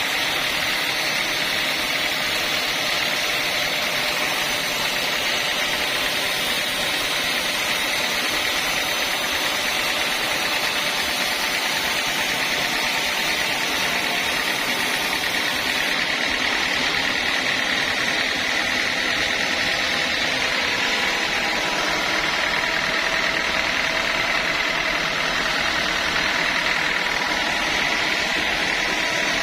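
Sawmill saw machinery running steadily, a constant mechanical din with no breaks or changes.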